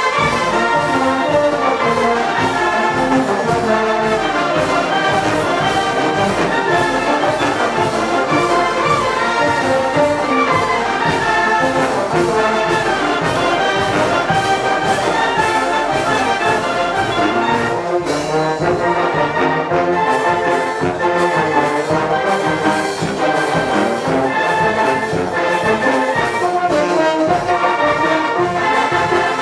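Oaxacan wind band (banda filarmónica) playing a piece: trombones, trumpets, clarinets and saxophones over tuba and a steady bass-drum beat.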